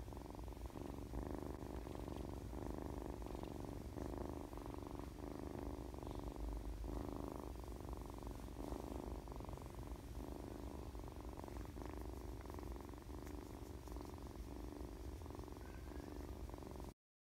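A seven-week-old feral tabby kitten purring steadily while being scratched under the chin and cheek, a contented response to the petting. The purr cuts off suddenly near the end.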